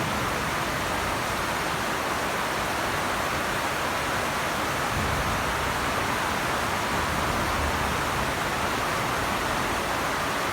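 Steady, heavy rain falling, an even hiss that holds at the same level throughout.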